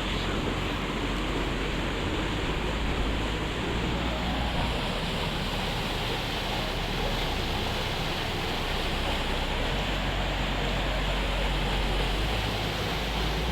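Steady rushing of a small river waterfall, with wind buffeting the microphone in low rumbles.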